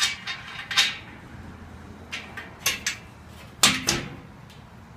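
A series of light metal clinks and knocks from a bolt and steel bed-frame angle iron being handled and fitted together, the loudest a close pair about three and a half seconds in.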